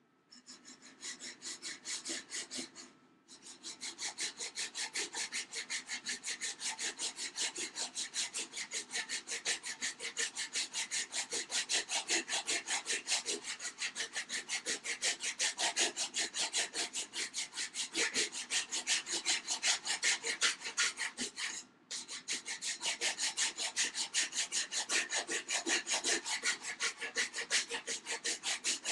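Hand file rasping back and forth across the edge of a wooden cat-door frame in quick, even strokes, taking the side down so the frame fits. The filing stops briefly twice, about three seconds in and about two-thirds of the way through.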